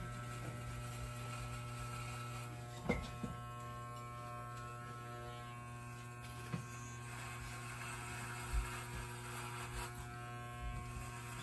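Electric hair clippers running with a steady buzzing hum as they cut hair, with a few soft clicks about three, six and a half and eight and a half seconds in.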